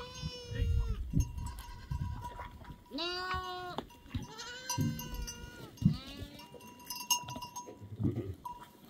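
Goats and sheep bleating several times in short, wavering calls, with animal bells clinking and ringing between the calls.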